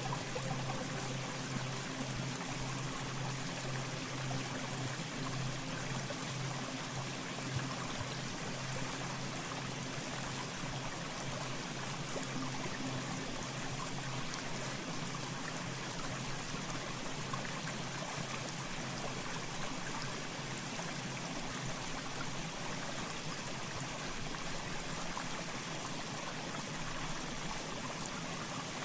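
Mountain stream flowing steadily, an even rush and trickle of water. Faint sustained low music tones sit under it in the first half and fade out.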